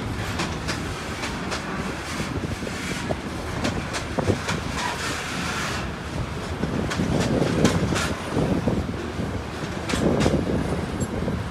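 Intermodal container wagons of a passing freight train rolling by close at hand: a steady rumble of steel wheels on rail with irregular clicks and clacks, swelling louder about seven seconds in and again near the end.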